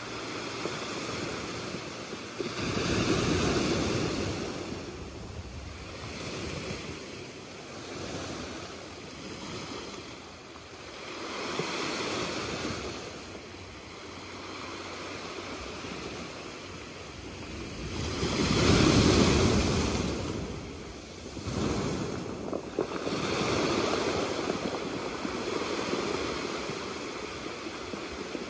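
Small sea waves breaking and washing up over a beach of dark rounded pebbles, coming in slow surges every several seconds, the loudest about two-thirds of the way through.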